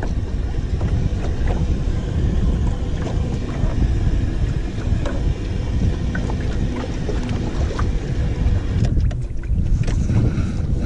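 Wind rumbling on the microphone over open water from a small boat, with a few light knocks.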